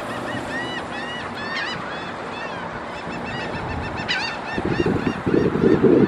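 Gulls calling: a series of short, rising-and-falling cries, thickest in the first two seconds and again about four seconds in. A louder low rumble comes in near the end.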